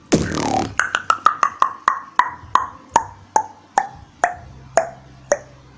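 A short swish, then a run of about sixteen sharp mouth-made clicks, each with a short ringing pop like a wood block. The clicks slow down steadily and drop in pitch as they go.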